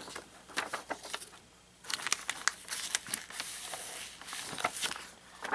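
Paper leaflets and packaging being handled, with irregular crinkles and clicks, busiest from about two seconds in.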